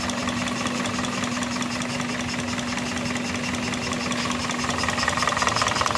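Toyota car engine idling with a fast, even ticking clatter over a steady hum. A higher-pitched whine grows a little louder about five seconds in.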